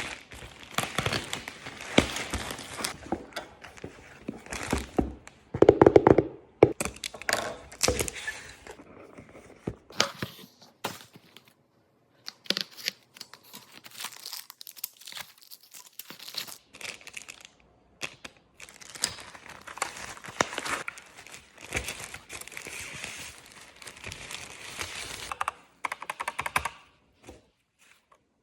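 Packaging being opened by hand: irregular crinkling and tearing of plastic and paper wrapping, with knocks from handling the box, loudest about six seconds in. There are brief pauses partway through and near the end.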